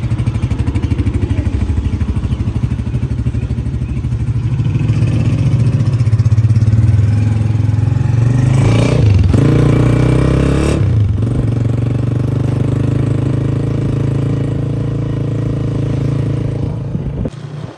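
Honda CG125's single-cylinder four-stroke engine running, a steady exhaust note with the throttle opened and closed about halfway through. The sound cuts off suddenly just before the end.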